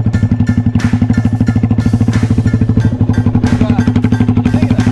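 Custom bobber motorcycle built on a 2011 Yamaha Scorpio, its single-cylinder four-stroke engine idling with a steady, rapid exhaust beat of about a dozen pulses a second.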